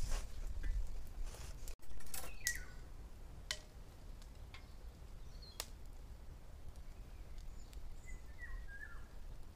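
A cloth cover rustles briefly at the start. After that come a few sharp clicks of metal skewers against a steel bowl as raw chicken wings are threaded, and a few short, falling bird chirps over a quiet outdoor background.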